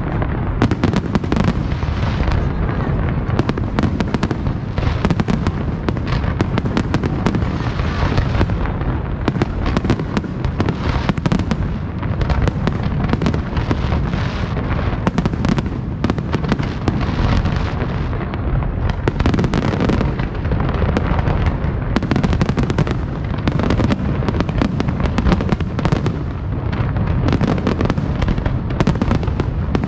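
A fireworks display going off without pause: rapid bangs and crackling packed close together over a constant deep rumble of booms.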